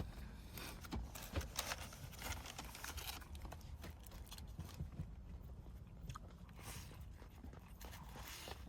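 Quiet eating: faint scattered clicks and taps of food being handled and bitten, with soft chewing.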